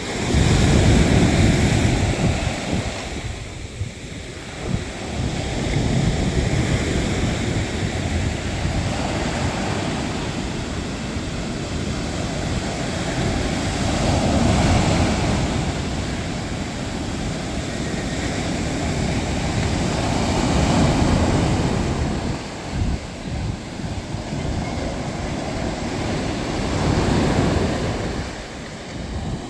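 Sea waves breaking and washing up the shore, the noise swelling and falling back several times, the loudest surge right at the start. Wind buffets the microphone with a low rumble.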